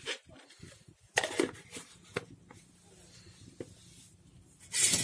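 A few short, noisy handling sounds with a faint low hum beneath. The loudest come about a second in and just before the end.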